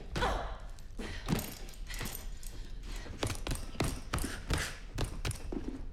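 Gloved punches and kicks hitting a heavy punching bag in quick, irregular thuds, over a low steady hum.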